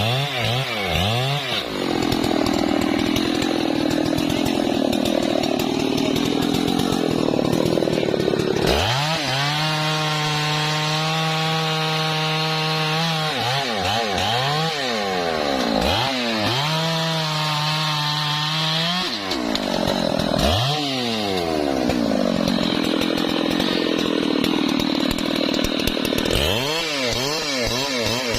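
Husqvarna 3120 XP large two-stroke chainsaw running hard while cutting wood. The engine speed repeatedly drops and climbs again, and it twice holds a steady high-pitched whine for a few seconds in the middle.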